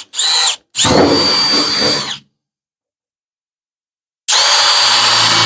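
Electric drill boring holes through the van's sheet-steel side panel along a marked window outline. The motor whine starts and stops in short squeezes of the trigger, runs for about a second and a half, cuts to dead silence for about two seconds, then runs again.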